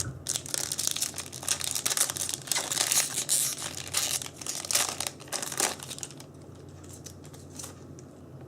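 Foil booster-pack wrapper crinkling as it is torn open and handled, a dense run of crackles that stops about six seconds in.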